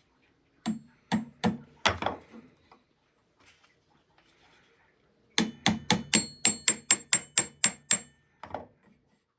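Hammer blows in a workshop: four separate blows, a pause, then a quick even run of about ten strikes at roughly four a second and one last blow, the later strikes with a light metallic ring.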